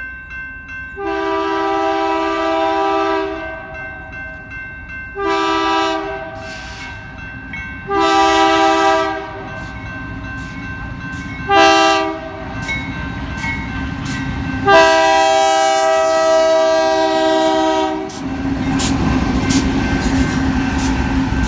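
Nathan K3HA three-chime air horn on BNSF GE C44-9W locomotive 4750 sounding for a grade crossing: a long blast, a short, a long, a short, then a final long one of about three seconds. About eighteen seconds in, the lead diesel locomotives pass close by, their engines running loud. A grade-crossing bell rings in steady strokes at the start and again as they pass.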